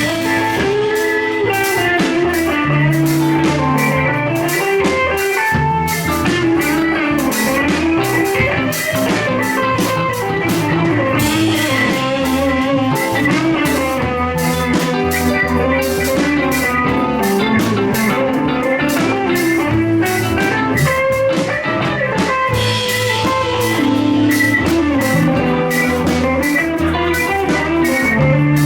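Live rock band playing an instrumental passage: a guitar melody over bass and a steady drum-kit beat.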